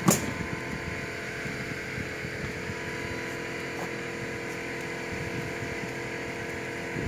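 Steady mechanical hum with a single sharp knock right at the start.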